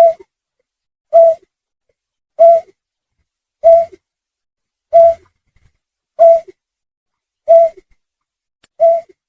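Lure recording of a snipe's call: a short, low, hoot-like note repeated at an even pace about once every 1.2 seconds, each call the same as the last.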